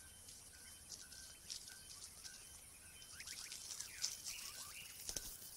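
Faint rustling and scratching in dry leaf litter from spot-winged wood-quails foraging on the ground. A few short gliding chirps come about three seconds in, over faint short notes repeating about twice a second, and there is a sharper knock near the end.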